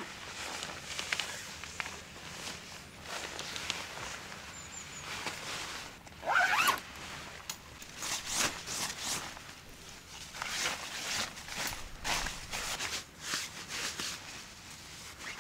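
Tent door fabric being rubbed and wiped down with a cloth: repeated short rasping and rustling strokes, with a brief squeak about six seconds in.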